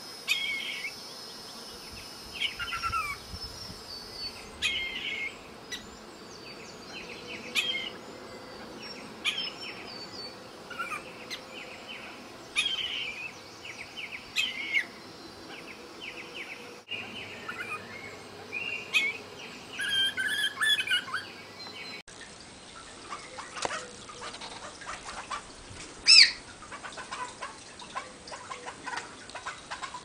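Buffy laughingthrush calling: short notes repeated every second or two, some sliding down in pitch, with one loud, sharp call near the end.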